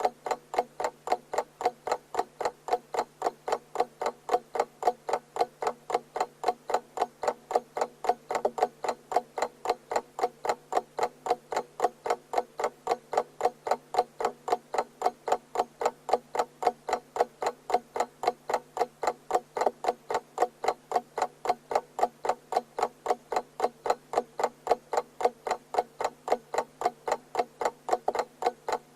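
Clock ticking steadily: a quick, even run of sharp ticks, several a second, with no alarm ringing.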